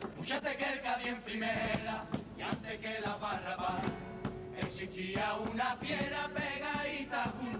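A junior chirigota, a Cádiz carnival choral group, singing together in unison over a regular percussive beat.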